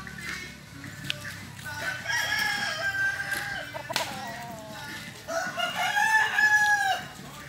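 A rooster crowing twice, each crow about a second and a half long, the second louder than the first.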